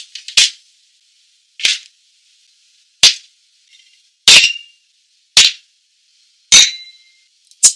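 A string of sharp, crisp clicks, about one a second. Two of them, near the middle and about two-thirds of the way in, trail off in a brief glassy ring.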